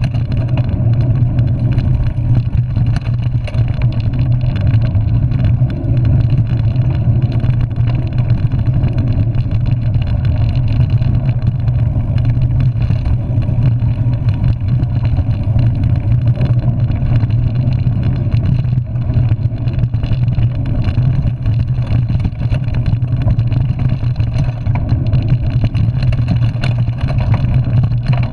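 Mountain bike descending a dirt forest trail, heard from a handlebar-mounted camera: a loud, steady rumble of wind and tyres with a constant rattle of small knocks over the bumps.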